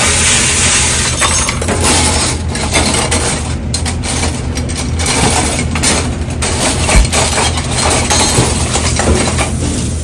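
Stainless steel cutlery clinking and rattling as spoons and forks are handled and dropped into the compartments of a plastic dish rack. Throughout, there is a steady loud hiss with a low hum beneath.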